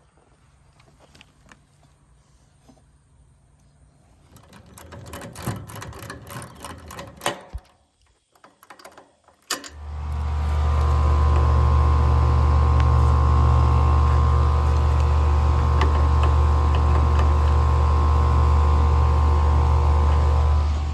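A few seconds of clicking and handling noises, then from about ten seconds in a loud, steady machine hum with a low drone and higher steady tones, which stops near the end.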